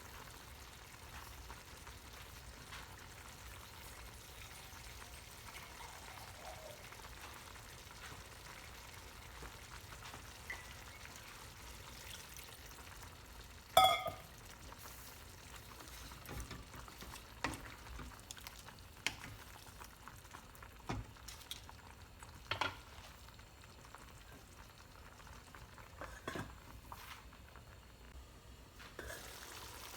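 Food sizzling quietly in a pan with a steady hiss. A single loud ringing metal clink comes about fourteen seconds in, then scattered sharp knocks and taps, like a spoon working against the pan.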